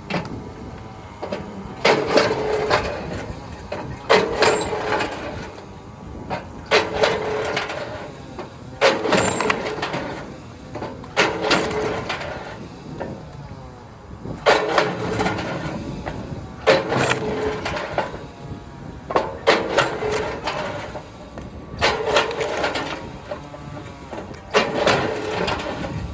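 Firewood splitting machine working through hornbeam logs in a steady rhythm: about ten splitting strokes, one every two seconds or so, each a second-long burst of straining mechanism and splitting wood over the machine's continuous running.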